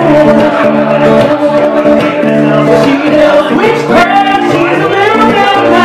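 Live song: a woman singing with acoustic guitar accompaniment, her voice holding and sliding between long notes.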